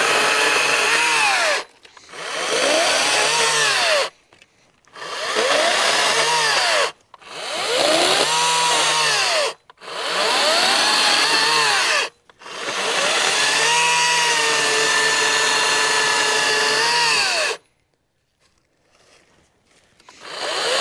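Echo DCS-5000 56V battery chainsaw cutting through dead black locust branches in six bursts of a few seconds each, its pitch rising and falling within each burst. The last cut is the longest, and after a short pause the saw starts again near the end.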